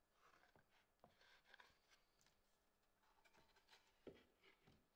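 Near silence with faint handling sounds: slabs of linden burl slid and rubbed on a wooden surface, with a light knock about four seconds in as one slab is turned over.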